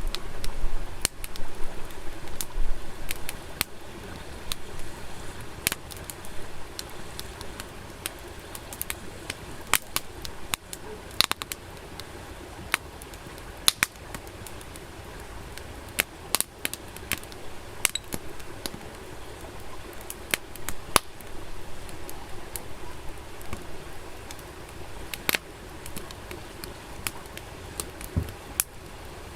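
Wood fire crackling, with irregular sharp pops and snaps over a steady low hiss.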